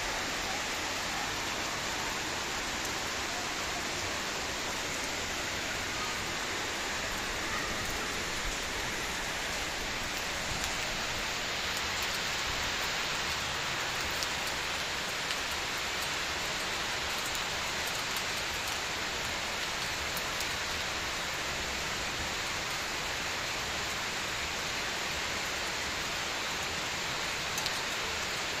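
Steady rain falling on rooftops and wet ground: a continuous even hiss, with a few faint drop taps on top.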